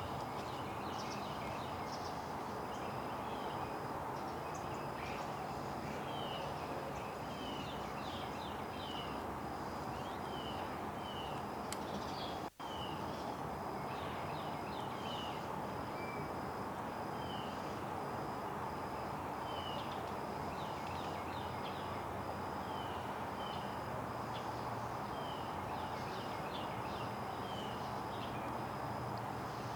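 Small birds calling with many short, downslurred chirps scattered throughout, over a steady background hiss and a continuous high pulsing tone. The sound drops out briefly about halfway through.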